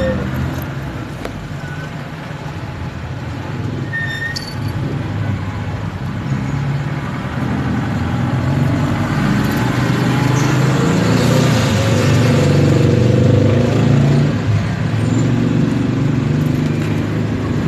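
Motor vehicle engine and road traffic running as a steady low rumble that grows louder through the first half and stays loud.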